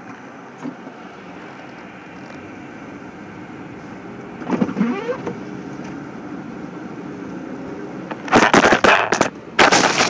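Steady road and engine noise inside a moving car on a slushy road, with a brief louder swell about halfway through. Near the end comes a run of loud crackling knocks.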